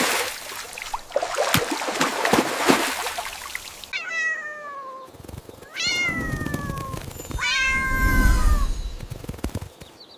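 A cat meowing three times, each meow falling in pitch, after a few seconds of noisy crackling with sharp clicks.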